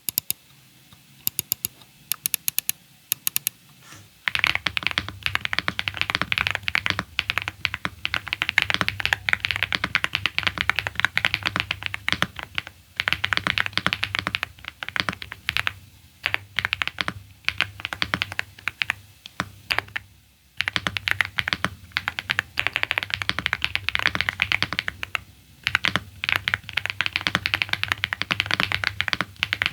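Mechanical keyboard with KTT Vintage White switches, a Mchose GX87, being typed on. A few scattered key presses give way about four seconds in to fast, continuous typing, broken by a couple of short pauses.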